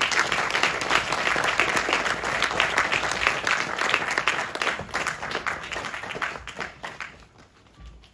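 Theatre audience applauding, a dense clapping that dies away over the last few seconds.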